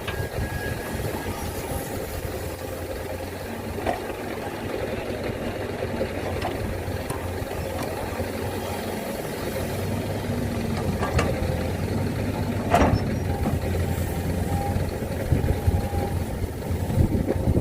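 Heavy diesel engine running steadily at low revs, with a few sharp knocks or clanks at irregular intervals.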